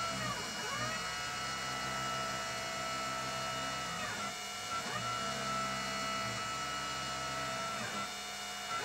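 CNC machine's stepper motors whining as they drive the pyrography tip along its path, several steady tones over a low hum. The tones swoop down and back up at the direction changes, around four to five seconds in and again near the end.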